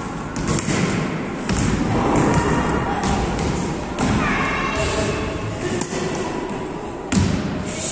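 Volleyball being played on a wooden gym floor: repeated thuds of the ball being struck and hitting the floor, with quick footsteps and girls' voices calling out. A sharp thud about seven seconds in is the loudest.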